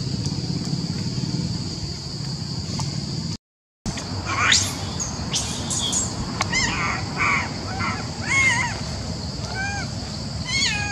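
Long-tailed macaques screaming in the trees: a run of short, arched, squealing calls, some sweeping sharply upward, starting after a brief cut about a third of the way in. Before the cut there is only steady forest background with a high, even hiss.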